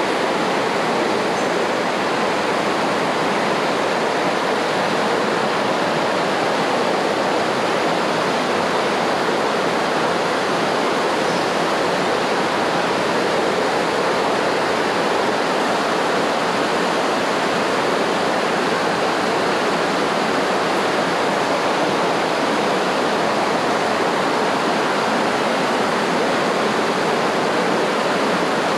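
Rushing water, a steady and unbroken hiss with no pauses or changes.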